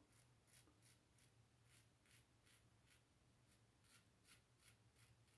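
Safety razor blade scraping through lather and stubble on the chin in short, quick strokes, about three a second, faint. A Karve SB-C razor with a PAA Strangelet blade, worked diagonally across the grain.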